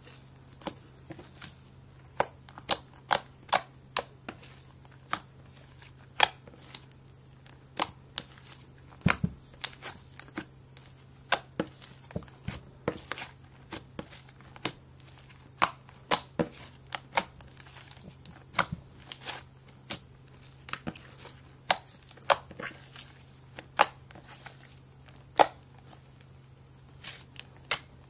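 Slime being kneaded and pressed by hand, giving off irregular sharp clicks and pops as air pockets in it burst, sometimes several a second.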